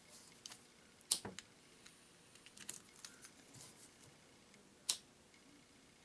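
Faint small clicks and scrapes of a die-cast toy car's plastic wheels and axle being pried and worked loose from its base by hand, with two sharper clicks about a second in and near the end.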